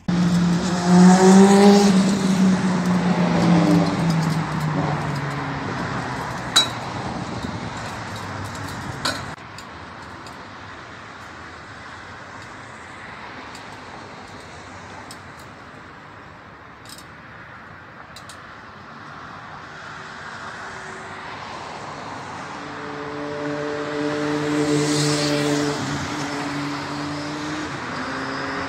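Street traffic: a motor vehicle passes close at the start, its engine note dropping in pitch as it goes away, then a steady traffic hiss with two sharp knocks, and another engine hum swelling near the end.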